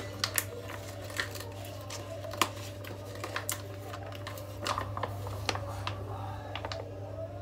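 Plastic tomato ketchup pouch crinkling, with scattered sharp clicks as it is handled and its cap is opened, over a steady low hum.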